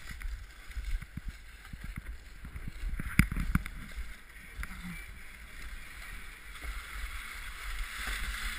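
Wind buffeting a helmet-mounted GoPro HD camera in its housing as a snowboard scrapes and slides over packed snow, with a few sharp knocks about three seconds in. The scraping hiss grows louder near the end.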